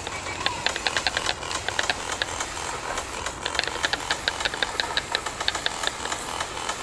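A spray paint can being shaken, its mixing ball rattling in rapid clicks, about six a second, in two bouts. A steady hiss runs underneath.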